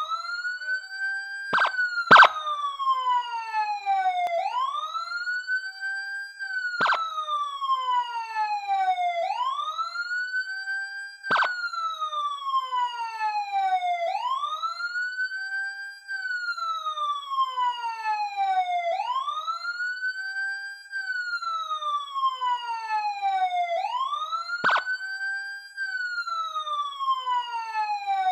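Police siren in wail mode: a tone that sweeps up quickly, holds briefly at the top and slides slowly down, repeating about every five seconds. A few sharp clicks cut in, the loudest about two seconds in.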